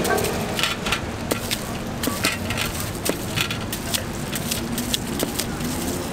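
Large kitchen knife cutting wedges from a peeled apple held in the hand: a string of short, sharp, crisp cuts and clicks, with the wedges dropping onto a steel scoop. Steady street traffic hum underneath.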